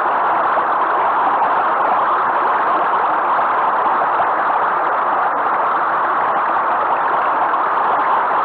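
Waterfall pouring, a loud, steady rush of falling water.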